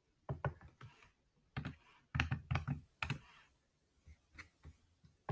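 Typing on a computer keyboard: quick clusters of key presses over the first three seconds or so, then a few lighter, separate clicks near the end.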